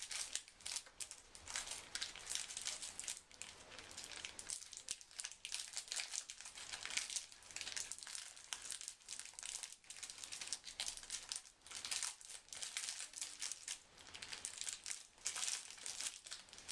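Plastic snack wrapper crinkling and crackling as it is handled and torn open, in quick irregular bursts.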